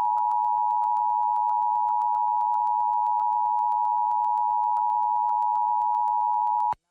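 Emergency Alert System attention signal: two steady tones sounding together (853 and 960 Hz), held at an even level and cutting off abruptly just before the end. It marks an emergency alert about to be read out.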